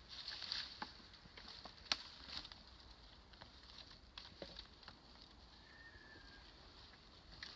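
Rustling and light crackling of dry leaves and twigs as someone moves bent over and handles branches on the ground, with a sharp snap about two seconds in.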